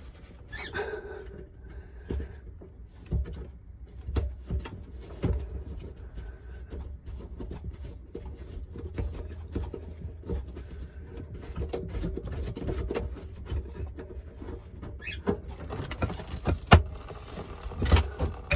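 Scattered knocks, clicks and rustling from hands and tools working on the plumbing fittings inside a cramped under-sink cabinet, with two sharper clicks near the end.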